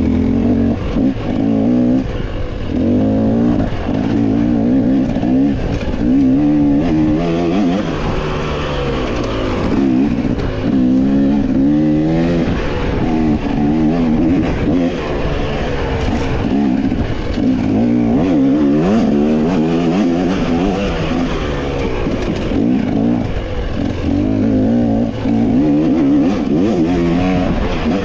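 Off-road dirt bike engine revving hard and constantly, its pitch climbing and dropping every second or two with throttle and gear changes as the bike is ridden fast along a trail.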